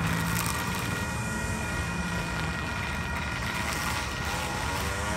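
Steady outdoor traffic noise with a faint constant whine, and a vehicle going by in the last second or two.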